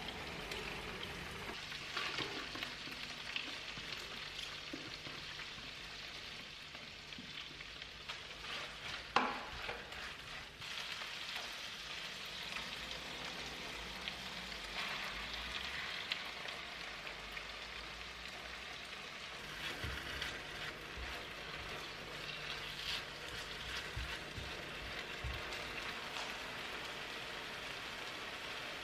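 Tuna, garlic, green onion and kimchi sizzling steadily in oil in a nonstick frying pan, stirred with a silicone spatula. There is one sharp knock about nine seconds in.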